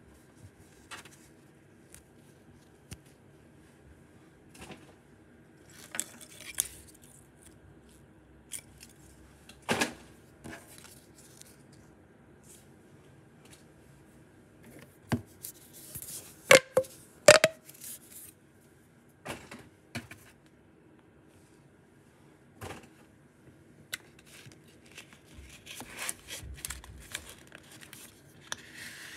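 Small toys and their packaging being handled: scattered rustles, light clicks and taps, with a few sharper knocks about halfway through.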